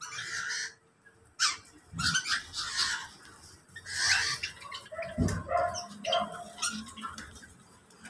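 Several birds in a mixed-species aviary chirping and calling in short, overlapping calls, with a couple of low thumps.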